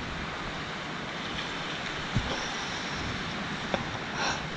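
Sea surf washing steadily onto the shore, mixed with wind noise on the microphone; two short knocks stand out, about two seconds in and just before four seconds.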